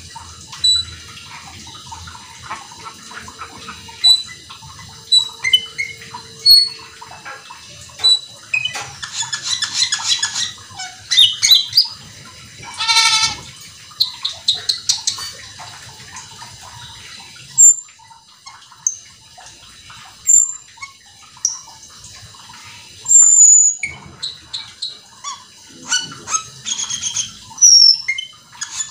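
Asian glossy starling (cucak keling) singing continuously in full voice: a fast string of sharp whistles and chirps with quick trills, and a harsh rattling burst about halfway through.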